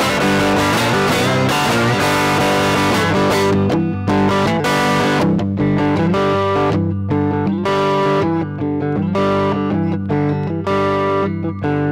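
Electric guitar playing a blues instrumental. It plays densely for the first few seconds, then a riff of separate picked notes and short chords with brief gaps between them.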